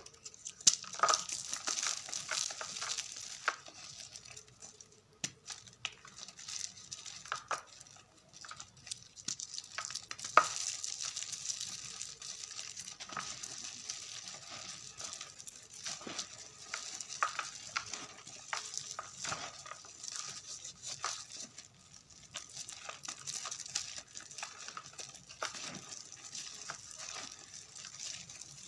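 Gym chalk mixed with confetti being crumbled and crushed by hand: a continuous dry crackling with many small sharp crunches and a few louder cracks.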